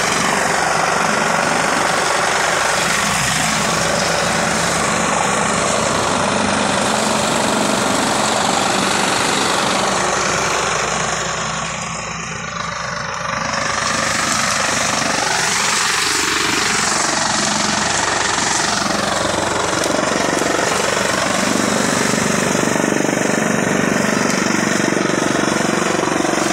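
Chaff cutter (kutti machine) running at full speed, chopping dry straw and blowing the chaff out in a loud, steady mechanical noise. The noise dips briefly about twelve seconds in, then returns to full.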